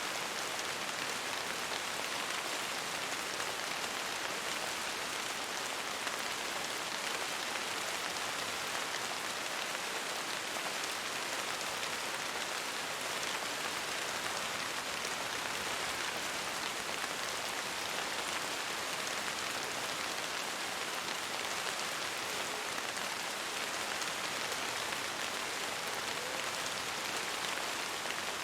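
Steady rain: a dense, even patter of many small drops that holds at the same level with no let-up.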